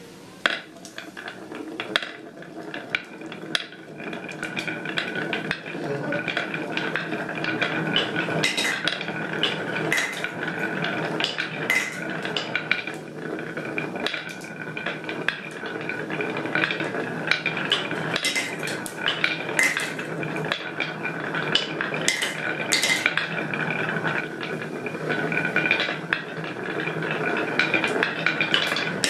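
Marbles rolling down a wooden serpentine slope: a continuous rattle of rapid clicks and clinks as they knock against the curved walls of the wavy wooden channels, with a steady ringing note under it. It grows louder and busier about four seconds in, as more marbles run.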